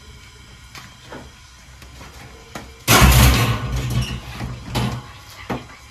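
Kitchen handling sounds as fried corn tortillas are laid into a glass baking dish on a metal counter: a few light taps, then about three seconds in a loud knocking rumble lasting about a second, followed by a few smaller knocks.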